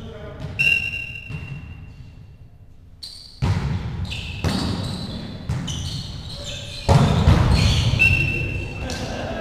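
Volleyball rally in a large sports hall: the ball is hit several times with sharp smacks that echo off the walls, mixed with players' calls. The loudest hit and shouting come about seven seconds in.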